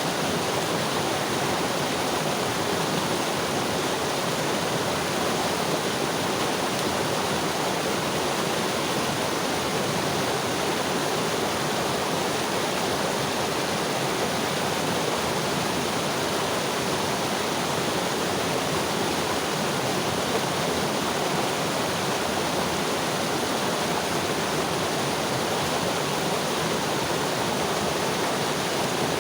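Mountain river flowing over rocks: a steady, even rush of water with no breaks.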